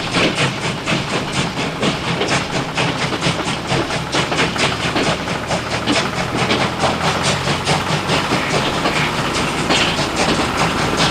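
Small motor-driven model machine running with a fast, even mechanical clatter, about five clicks a second, over a steady motor hum.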